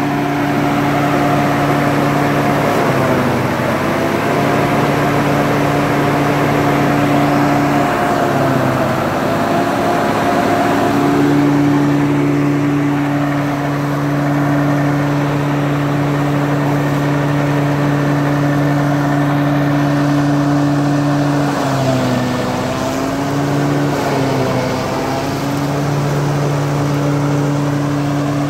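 Sonalika 60 RX tractor's diesel engine running steadily at working speed while powering a forage chopper, with a steady pitch that sags briefly and recovers four times, about three seconds in, around nine seconds, and twice in close succession later on, as the chopper loads the engine.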